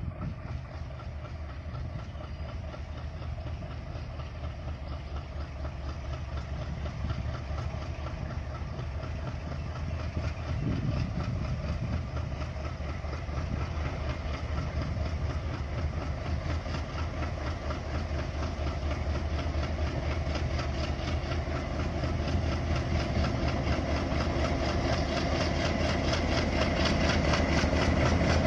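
WDM-3A diesel-electric locomotive's ALCO V16 engine rumbling at low speed as it draws a long freight train in, growing steadily louder as it nears.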